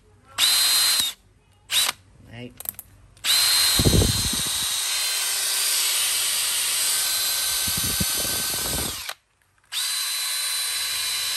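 Makita XFD13 18V brushless cordless drill-driver running free with an empty chuck: a short trigger pull, a brief blip, then a run of about six seconds and another of about two. Each run spins up with a rising whine to a steady high pitch.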